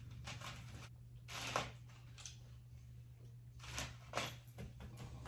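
Faint rustling and handling noises from decorating the gingerbread kit, a few short crinkles and scrapes scattered through, the loudest about a second and a half in and again near four seconds, over a low steady hum.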